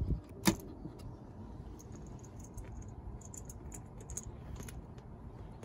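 Small clicks and taps of hands working plastic trim and a thin wire, with one sharper click about half a second in and scattered light ticks after it.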